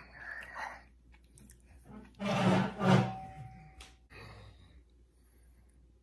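A man's loud wordless vocal outburst lasting about a second, in two pushes about two seconds in, after a shorter breathy sound at the start.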